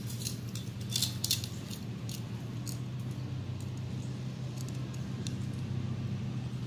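Scattered sharp clicks and pops, bunched in the first second and a half and sparser after, over a steady low hum.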